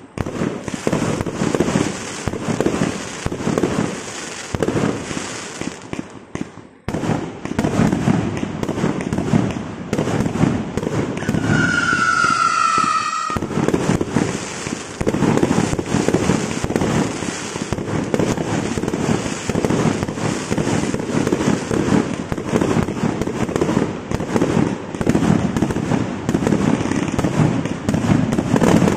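Witch Doctor 200-shot firework cake firing: a rapid, nearly continuous barrage of shots launching and bursting, with a short lull about seven seconds in.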